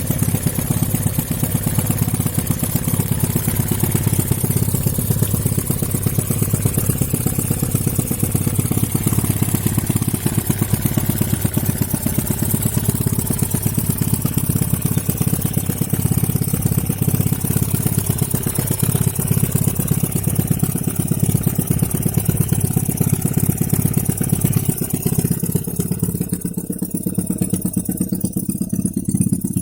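Small homemade four-stroke engine built from a refrigerator compressor, running steadily with a rapid, even firing beat. Its high hiss thins out near the end.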